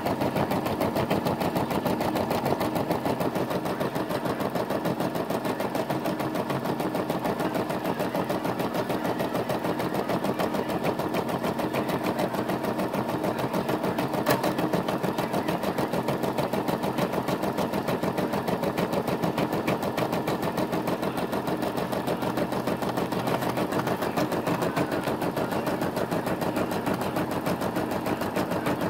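Brother SE425 embroidery machine stitching an embroidery design, the needle running at a steady rapid rate, with one sharper click about halfway through.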